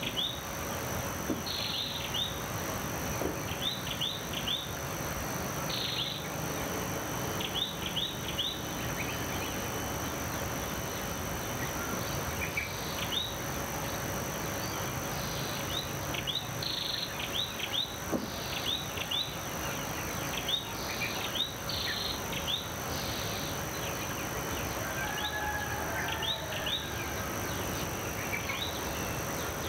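Morning bird chorus: many short, falling chirps in quick clusters, over a steady high-pitched drone of insects. A lower call joins briefly near the end.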